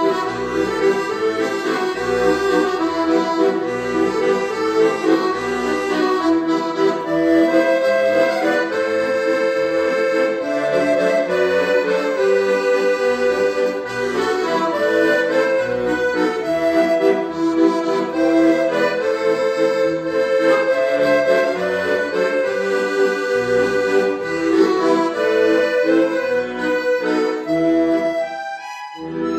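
Weltmeister chromatic button accordion playing a folk-song melody over a rhythmic left-hand bass accompaniment. The playing breaks off briefly near the end.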